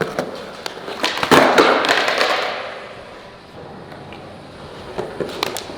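Skateboard knocks and clacks on concrete, the loudest a heavy thump about a second in followed by a second of rough rolling noise, with a few lighter taps near the end.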